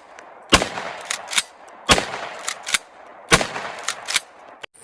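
Shotgun sound effect: three blasts about a second and a half apart, each with a long fading tail, with lighter clicks in between.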